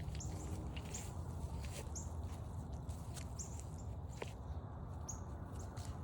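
A small bird calling in short, high chirps, one every half second to a second, over footsteps on a forest trail and a steady low rumble.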